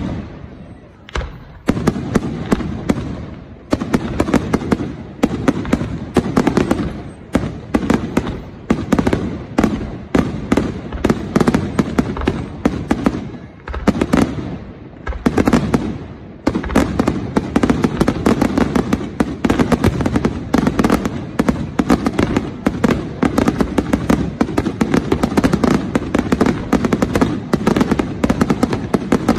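Aerial fireworks bursting in rapid succession: a dense run of bangs and crackles, with a few short lulls in the first half and an unbroken barrage from about halfway through.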